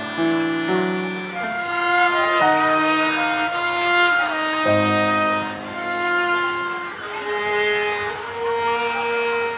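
Violin and flute playing a slow melody together in long held notes that step from pitch to pitch, over low sustained accompaniment notes.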